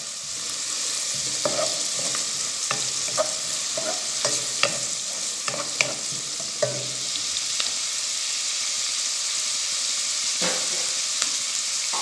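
Chopped onion and garlic sizzling in clarified butter in a pot, with a wooden spoon stirring and tapping against the pan through the first half. The spoon then rests in the pot while the frying sizzle goes on, with one more tap near the end.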